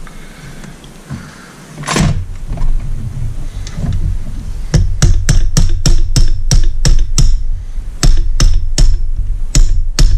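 Hammer tapping on a socket used as a drift to knock the wrist pin out of a Mercury Thunderbolt 500 outboard piston: a single heavier knock about two seconds in, then a run of about fifteen sharp metal taps, two to three a second.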